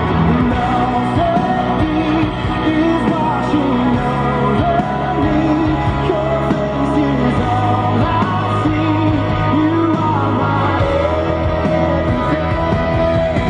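A rock song with a singing voice, played as background music.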